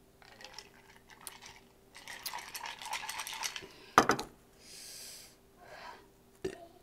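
A drinking glass clinking with a quick run of rattling clicks, then set down on a wooden table with one sharp knock about four seconds in.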